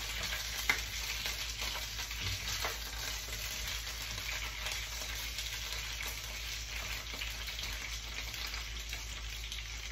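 Whole green jalapeño and serrano chiles frying in oil in a pan: a steady sizzle, with a couple of clicks of a spatula against the pan in the first few seconds as the chiles are turned.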